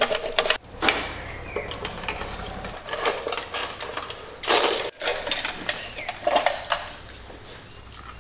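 Hand tools and car parts being worked on: irregular mechanical clicking and clattering, with a few louder scraping bursts.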